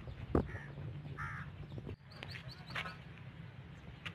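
Crow cawing twice in the first second and a half, with a sharp click just before the first caw, over a low steady rumble.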